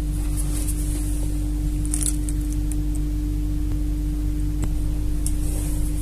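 A steady low electrical hum from a running appliance. A few faint light clicks and taps come from dough being handled on a countertop.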